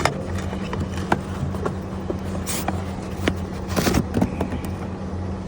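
Sharp clicks, knocks and scrapes from handling the new hydraulic filter element as it is slid into place, busiest a little before four seconds in, over a steady low mechanical hum.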